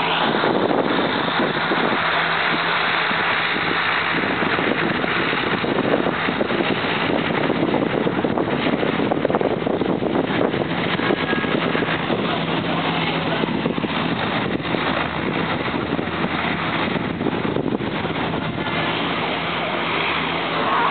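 Twin-turboprop Turbo Commander's engines running as it taxis along the runway, a steady loud drone with a constant low hum. It eases slightly in the second half as the aircraft moves off down the runway.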